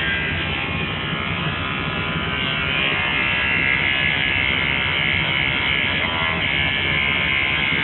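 Electric dog grooming clippers running with a steady buzz while the hair around a dog's eyes is trimmed.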